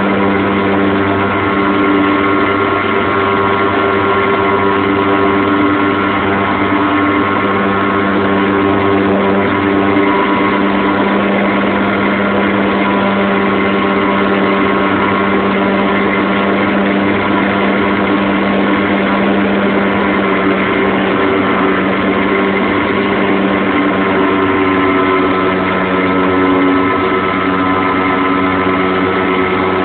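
Radio-controlled model airplane's engine running loud and steady at an even pitch.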